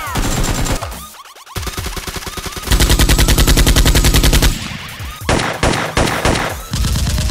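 Machine-gun fire sound effects in several rapid bursts of automatic shots. The loudest and longest burst comes a little under halfway through.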